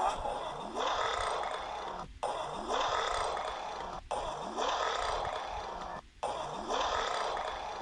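Alligator burping: a steady run of rough, breathy burps about once a second, each with a low rising note at its start, with short breaks about every two seconds.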